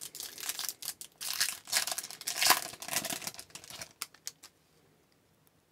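The wrapper of an Upper Deck Series 2 hockey card pack being torn open and crinkled by hand. It is a run of crackling, rustling tears lasting about four seconds.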